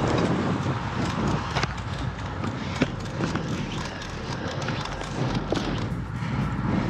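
Riding noise from a road bike on the move: wind on the microphone and rolling road noise, with a few sharp clicks, the loudest near the middle.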